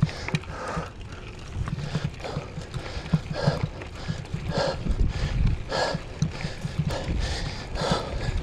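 Mountain bike being pedaled uphill on a dirt trail, with a rider's hard breathing in noisy puffs about once a second over a steady low rattle and thumping from the bike on the rough ground.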